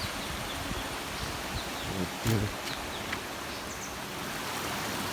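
Steady rush of falling water at the Harvalem waterfall, with a short bit of a man's voice about two seconds in.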